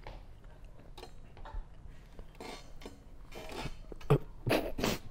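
Someone eating a hot chicken wing: scattered short mouth and handling noises, with louder sounds near the end.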